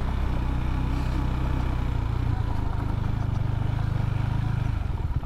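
KTM Duke 390's single-cylinder four-stroke engine running steadily at low revs while the bike rolls slowly on a dirt track. Near the end it drops to a slow idle, each firing pulse distinct.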